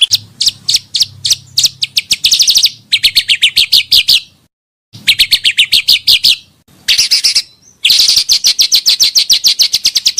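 Song of the bird Indonesian keepers call pancawarna, played as a lure and tutor recording: rapid, high-pitched trilled chirps in runs of one to two seconds, separated by short pauses.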